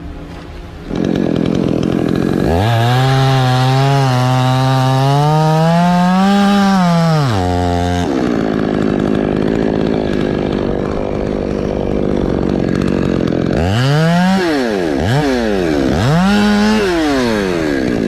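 Two-stroke petrol chainsaw running and revving. Its pitch climbs over several seconds and drops off sharply, then it runs steadily for a few seconds, and near the end the throttle is blipped several times in quick rises and falls.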